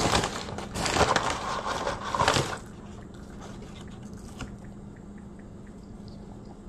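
Paper fast-food bag crinkling and rustling for about two and a half seconds as a hand reaches into it, then quieter chewing of french fries with small, soft clicks.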